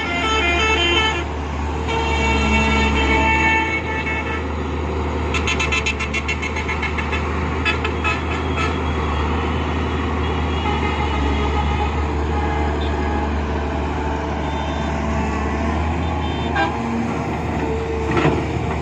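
Vehicle horns sounding over a steady low engine rumble, with bursts of rapid metallic rattling clatter about five and eight seconds in.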